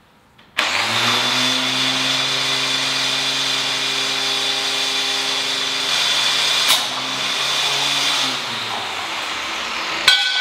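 Angle grinder switched on and running at full speed with a steady hum and high whine. A sharp crack comes about two-thirds through, then the motor winds down, and a metallic clang rings out near the end.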